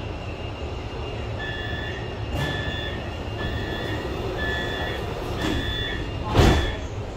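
Metro train door-closing warning: about five beeps, roughly one a second, then the doors thud shut near the end, over the steady low hum of the stopped train.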